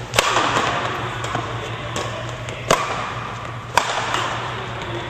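Badminton rackets striking the shuttlecock in a doubles rally: a series of sharp hits about a second apart, the loudest near the start and around three and four seconds in, each with a short echo from the hall. A steady low hum runs underneath.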